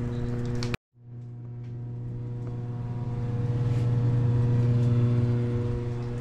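Steady machine hum, a low electrical drone with a few even overtones above it. It drops out for a moment under a second in, then returns and grows a little louder around the middle.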